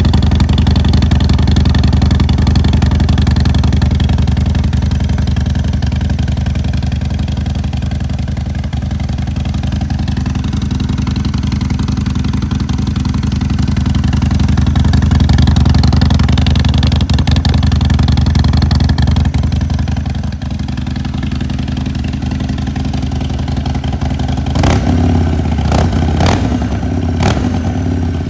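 Harley-Davidson Sportster 1200's air-cooled V-twin idling on its first cold start through a newly fitted 2-into-1 aftermarket exhaust, steady and loud. Near the end there are a few sharp clicks or knocks over the engine.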